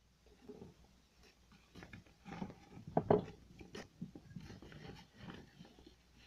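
A sheet of paper being handled and rubbed close to the microphone: irregular soft rustling, loudest about three seconds in.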